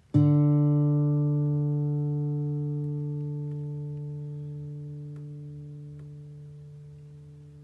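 Acoustic guitar's open D string plucked once and left to ring while it is checked against a tuner: a single low note that dies away slowly and evenly.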